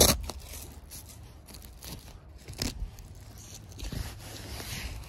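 Canvas being handled and smoothed flat by hand, rustling and scraping, with a sharp knock at the start and a few fainter knocks after.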